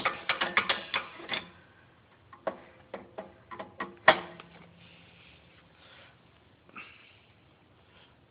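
BMW E46 325Ci suspension creaking as the car is moved on a jack. A quick run of creaks and clicks lasts about a second and a half, then scattered single creaks come, with the sharpest about four seconds in, before the sound fades. The owner suspects the spring or the strut's top mount.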